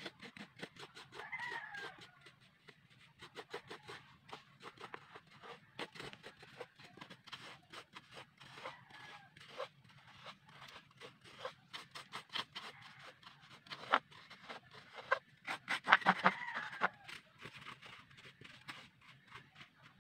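A metal spatula scraping and clicking against a metal wok as it stirs coconut sugar that has dried into loose granules, with the strokes thickest around the middle and near the end. Chickens call in the background, once about a second and a half in and again more loudly about sixteen seconds in.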